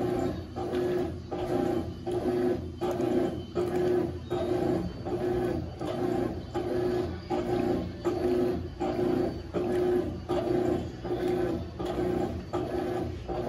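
Consul CWS12 top-loading washing machine agitating a load, its motor and agitator churning water and laundry in an even rhythm of about three strokes every two seconds.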